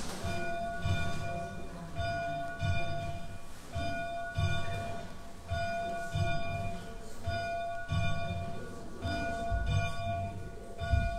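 A single church bell tolling steadily, about one stroke a second, each stroke ringing on between strikes, with a dull low thud at many of the strokes.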